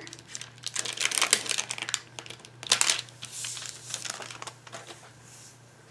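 Clear plastic sheet of photopolymer stamps crinkling as a stamp is peeled off it and handled: a run of irregular crackles that thins out and fades about three and a half seconds in.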